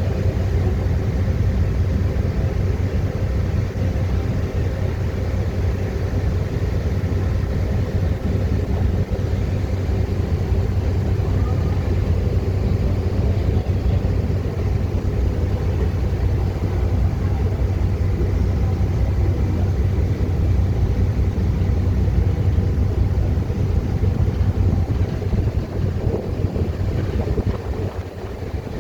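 A boat's engine running steadily, a constant low drone with wind buffeting the microphone.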